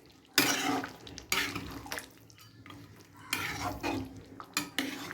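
A spoon stirring chicken gravy in a cooking pot: about five separate scrapes and clinks against the pot with short pauses between them.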